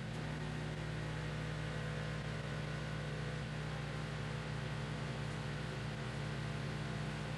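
Pressure washer running steadily: a constant machine hum under the even hiss of the water jet spraying a driveway.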